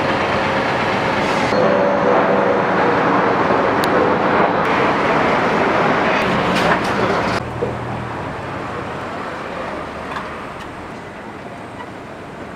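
Steady city street traffic noise with a low engine hum, dropping abruptly to a quieter level about seven and a half seconds in.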